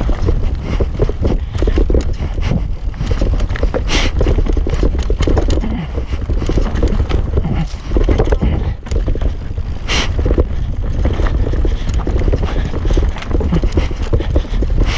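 Norco Range mountain bike ridden fast down a dirt singletrack, heard from an action camera on the bike or rider: wind rumbling on the microphone, tyres on loose dirt, and a constant rattle and knocking of chain and frame over roots and bumps. Two brief hissing bursts stand out, about four and ten seconds in.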